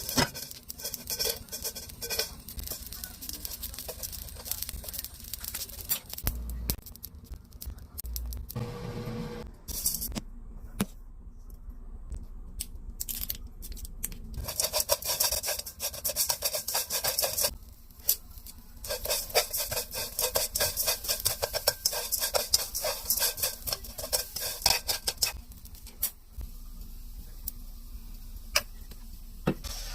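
Dried small anchovies rattling and scraping against a pan and spatula as they are stirred, a dense crackle of fine clicks that comes in stretches with quieter pauses between.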